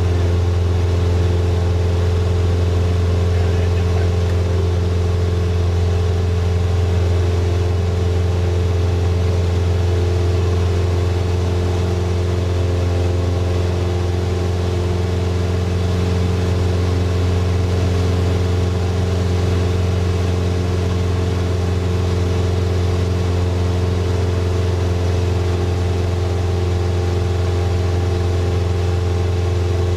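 Single-engine floatplane's piston engine and propeller running steadily in flight, a constant low drone.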